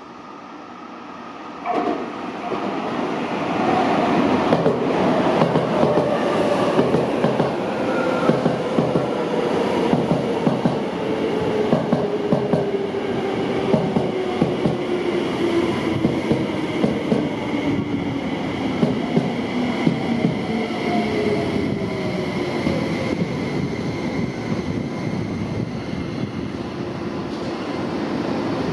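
Toyo Rapid Railway 2000 series electric train running, with its wheels clicking rhythmically over rail joints and a motor whine falling slowly and steadily in pitch as the train slows. The sound starts suddenly about two seconds in.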